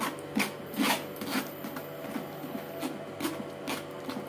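Steel spoon scraping and pressing bael fruit pulp against a wire-mesh strainer, a rasping rub in repeated strokes, the strongest in the first second and a half, pushing the juice through and leaving the seeds and fibres behind.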